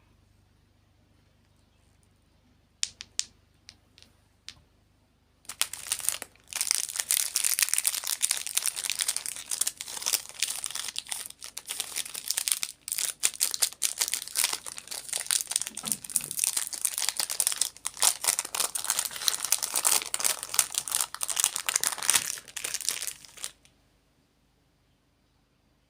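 A few light clicks, then a long run of close-up crinkling of plastic packaging that stops suddenly near the end.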